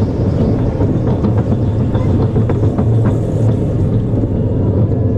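Steady low rumble of a small family roller coaster's train running along its track, with a few brief clatters about two seconds in.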